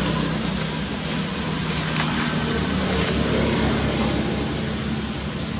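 Steady low engine rumble with a constant hiss.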